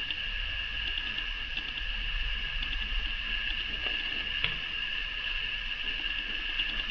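Faint small clicks and light rustling from hands handling and pressing small EVA foam craft pieces, over a steady high-pitched electrical whine and low hum.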